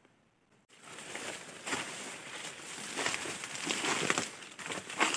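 Footsteps crunching through dry leaf litter and brushing through undergrowth, an irregular rustling and crackling of leaves and twigs that starts about a second in.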